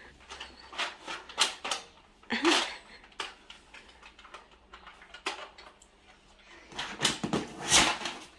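Scattered plastic clicks and knocks of a Nerf toy dart blaster being handled, with louder ones about a second in, about two and a half seconds in, and a cluster near the end.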